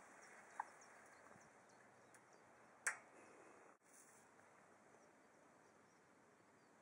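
Near silence, broken by a faint short blip under a second in and a single sharp click about three seconds in.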